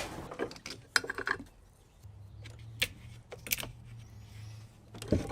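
Scattered light metallic clinks and knocks of tools and battery hardware as a car battery is taken out, with a faint low hum under the second half.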